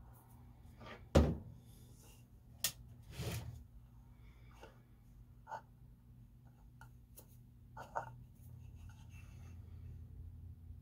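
Small plastic model display-stand parts handled and fitted into their base: a knock about a second in, a sharp click, then a short rustle and a few scattered light taps, over a faint steady hum.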